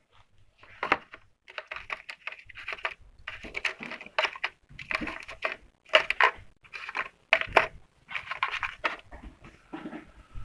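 Irregular clicking and clattering of a socket set being handled: small metal sockets and bits knocking about in their case.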